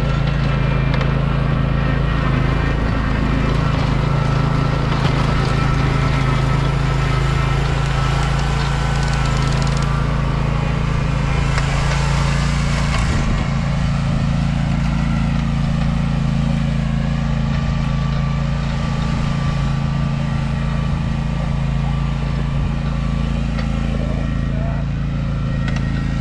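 John Deere Z530R zero-turn mower's engine running steadily at a constant speed.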